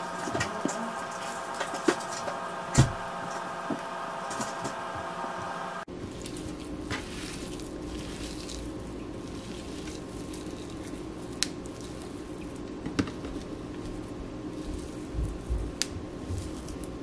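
Baked chicken being shredded by hand on a plate: soft, squishy pulling and tearing of the meat with scattered light clicks. A steady hum runs underneath and changes to a lower hum about six seconds in.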